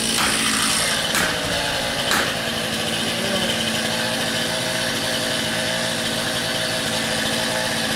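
Chainsaw idling steadily. Three sharp knocks about a second apart in the first two seconds or so, from a sledgehammer striking a felling wedge in the trunk's cut.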